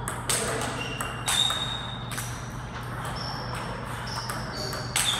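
Table tennis rally of flat forehand slaps: the ball cracking off the rubbers and bouncing on the table, each hit a sharp click with a short ringing ping, at uneven gaps of roughly a second, the loudest about a third of a second in, twice more in the next two seconds, and again near the end.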